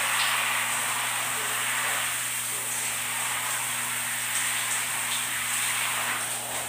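Shower spray running steadily, water splashing onto a person standing under it in a tiled shower, with a steady low hum beneath.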